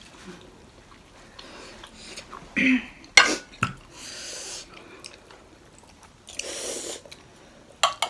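Close-up eating sounds of momos in jhol achar: chewing and wet mouth noises, with two longer slurp-like hisses and a spoon clicking sharply against a plate about three seconds in.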